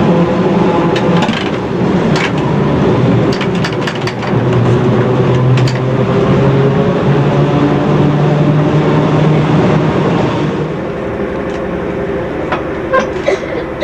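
Lisbon electric tram running, heard from the driver's cab: a steady traction-motor hum that shifts pitch a few times over the rumble of the wheels on the rails, with scattered sharp clicks and clanks. It quietens about ten seconds in.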